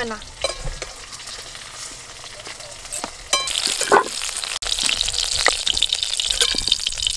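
Mustard oil sizzling in a wok over a wood fire while a metal spatula scrapes the pan, lifting out fried potato wedges and green tomatoes. The sizzling grows much louder a little over three seconds in.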